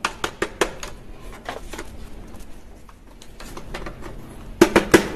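Hard plastic toy dart blaster being handled: scattered light clicks and taps of plastic, with a quick cluster of louder clicks near the end.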